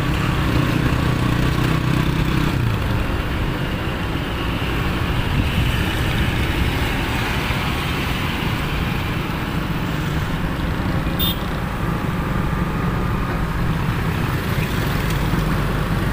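Steady road and engine noise from riding in a moving vehicle along a city street, with traffic around it.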